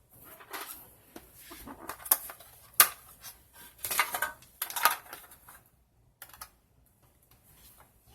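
Paper rustling and crinkling with irregular sharp clicks and taps from handling craft materials. These sounds stop about six seconds in.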